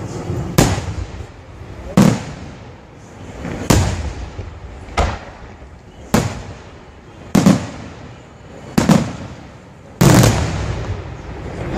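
Aerial firework shells bursting in a steady sequence: about eight sharp bangs, one every second or so, each fading away briefly before the next.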